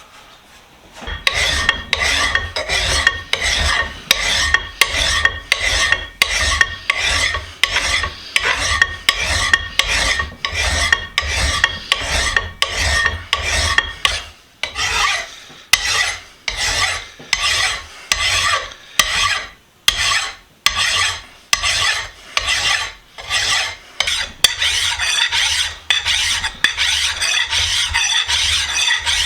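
Hand file rasping back and forth across the metal jaws of a Reed No. 24 utility vise, in steady even strokes at about one and a half a second. The jaws are being filed to true up uneven, dinged faces.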